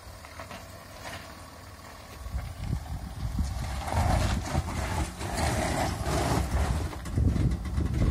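Volkswagen Amarok pickup crawling down a steep dirt ramp into a trench: the engine runs low and the tyres grind over dirt and gravel. The sound gets louder and rougher from about three seconds in.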